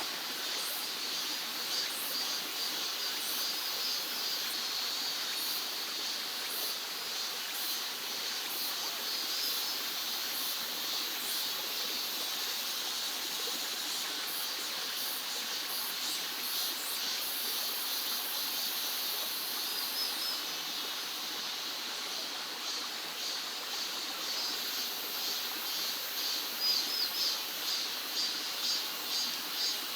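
Mountain valley stream flowing steadily, with high chirping calls over it. Near the end a run of regular, louder pulses comes in, a little under two a second.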